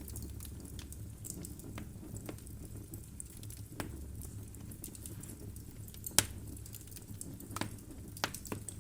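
Wood fire burning in a fireplace: burning logs crackling, with scattered sharp pops over a low steady rumble. The loudest pop comes about six seconds in, and a few more follow near the end.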